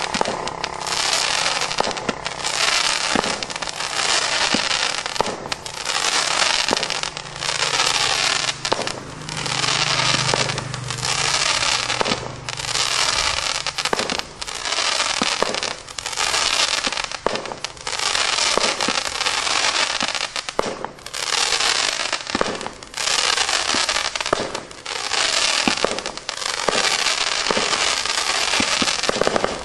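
A low-noise 30-shot firework cake (Fishes & Seahorses) firing continuously, roughly one shot a second. Each shot is a soft, sharp launch followed by about a second of fizzing crackle as the swimming fish stars break.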